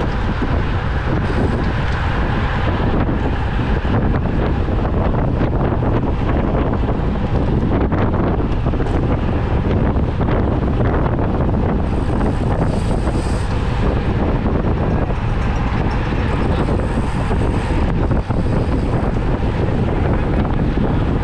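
Loud, steady wind noise on the microphone of a camera carried on a racing bicycle at speed, a continuous low rumble with no breaks.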